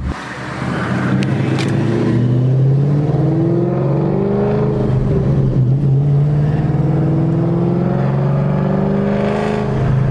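Supercharged 5.4-litre V8 of a Shelby GT500, breathing through long tube headers and an off-road X-pipe, accelerating: the engine note rises, drops back around the middle, then climbs again toward the end. It runs without the exhaust pops expected at this rpm.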